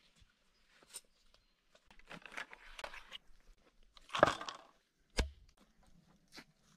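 A tool chopping into a rotting tree stump and the leaf litter around it: rustling and crunching, loudest about four seconds in, then a single sharp thud about a second later.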